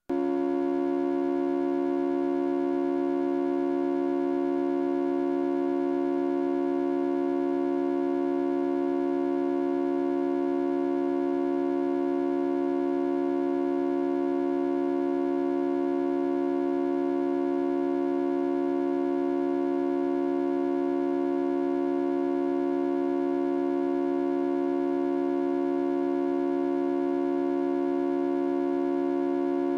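Synthesizer tone made by half-wave rectification: a CFM Bipolar Half-Wave Rectifier takes the positive half of one sine wave and the negative half of another and joins them into one new waveform. The result is a steady tone at one pitch, rich in overtones, that starts abruptly.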